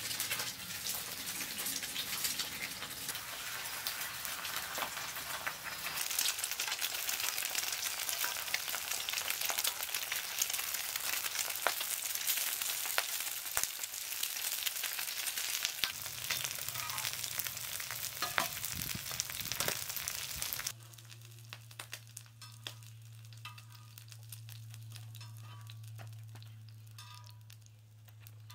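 Eggs frying in oil on a large flat iron griddle: a dense crackling sizzle full of spatters. About two-thirds of the way through it drops suddenly to a much quieter stretch with a low steady hum and a few faint ticks.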